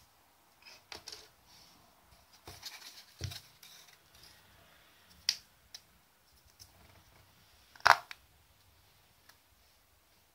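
Handling noises: scattered light clicks, taps and rustles of a plastic vial and packaging being handled, with the loudest, a sharp knock, about eight seconds in.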